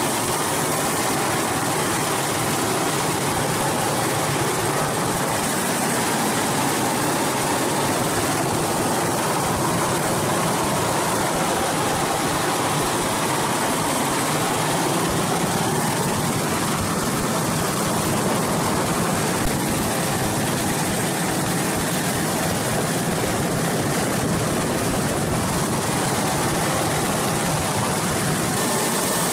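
Super Puma helicopter's twin turbine engines and main rotor running steadily in a hover, heard from inside the cabin: a steady rushing noise with a thin high whine above it.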